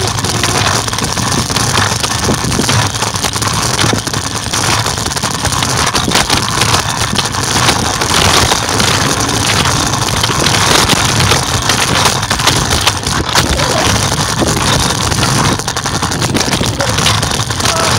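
Loud, steady rolling noise of a scooter ride over pavement, its wheels rumbling, with frequent small knocks and rattles. This rough noise is what makes the recording's audio bad.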